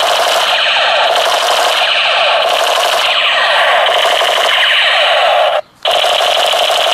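Battery-powered toy machine gun playing its electronic rapid-fire sound effect through its small speaker, a loud continuous rattling burst. It cuts out briefly near the end as the trigger is released, then starts again.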